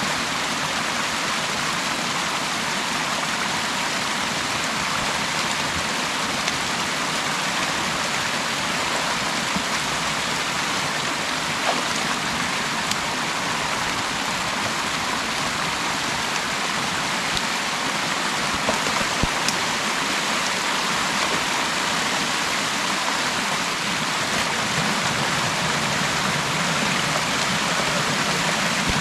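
Steady rush of creek water pouring through an opening in a beaver dam, with a couple of faint knocks around the middle.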